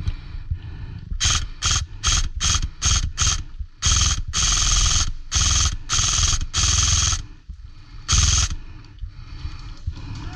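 Airsoft electric gun (AEG) firing, its gearbox cycling with a fast mechanical rattle. It fires a quick string of about six short bursts, then several longer full-auto bursts, then one last burst.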